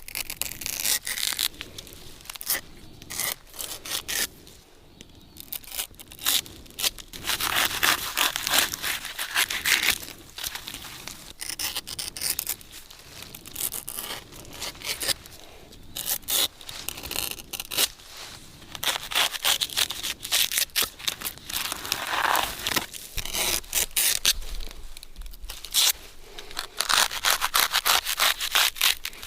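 Brown fibre sheaths being scraped and torn off a windmill palm trunk: flurries of rough tearing and scraping strokes with short pauses between them.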